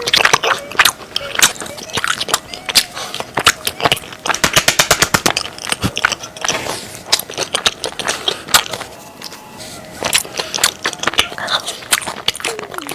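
Close-miked eating sounds: crisp, crackling bites and chewing, with quick runs of sharp crunches about four to five seconds in.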